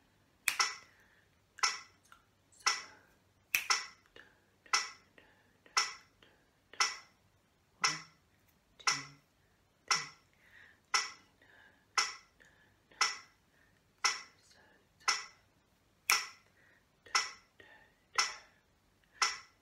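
A steady beat of sharp clicks, about one a second, keeping time for singing a sight-singing exercise.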